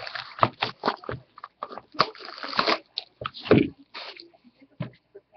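Plastic shrink wrap being torn and crumpled off a cardboard trading-card box: irregular crinkling and crackling, loudest in a few dense clusters.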